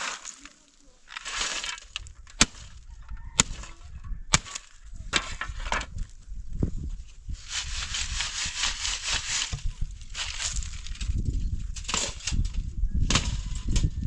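A shovel scraping and knocking on stony ground, with three sharp knocks in the first half, then dry earth being shaken through a round sieve, a rasping hiss for about two seconds near the middle, and more scraping of soil and stones after it.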